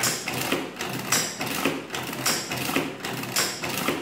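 Burroughs Class 1 adding machine's hand crank being pulled over and over, about once a second, each pull a loud clatter of levers and gears on the stroke and the return. The repeat key holds the entered number so that each pull adds it into the accumulator again, as multiplication by repeated addition.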